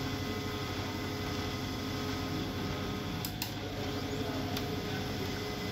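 HP LaserJet 1020 laser printer running a test print cycle: its main drive motor and gear train turn with a steady whir, with one or two brief clicks a little past three seconds in as it tries to pick up the paper.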